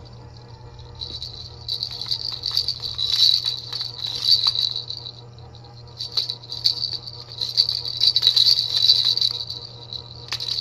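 Plastic baby rattle shaken, jingling in three spells with short pauses between, along with light clicks of plastic knocking. The last spell starts near the end.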